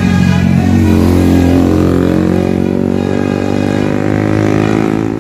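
A large bus's engine running hard as the bus passes close, its pitch sliding as it goes by and then dropping away near the end. In the first couple of seconds the high tones of a multi-tone Basuri telolet horn fade out over it.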